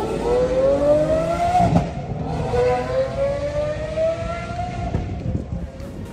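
Ford Mustang engine revving hard as the car accelerates away. The pitch climbs for about two seconds, drops sharply at an upshift, then climbs again more slowly and fades as the car pulls off.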